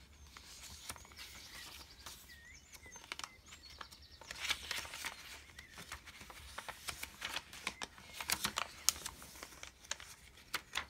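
Paper pages and tags of a handmade journal being handled and turned: dry paper rustling and crinkling with small taps, busiest from about four to nine seconds in.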